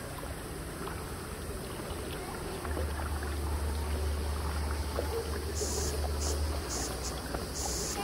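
Steady rush of a mountain river's running water, with a low rumble on the microphone that swells in the middle and short stretches of high hiss in the last few seconds.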